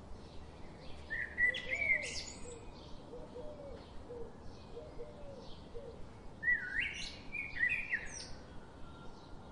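Birds chirping: two bursts of bright, sweeping chirps, about a second in and again from about six and a half seconds, with fainter lower calls between them over a light regular ticking.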